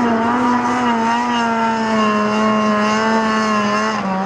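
Snowmobile engine running at high, steady revs while the sled skims across open water; the pitch eases down slightly near the end.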